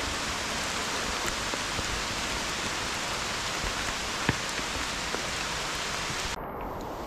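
Heavy rain falling steadily as an even hiss, with a few separate drops ticking sharply. About six seconds in, the higher part of the hiss drops away suddenly.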